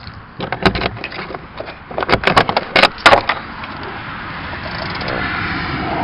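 A key is worked in a Honda Civic's trunk lock and the trunk latch releases: a string of sharp clicks and clunks through the first three seconds or so, then a steady rushing noise.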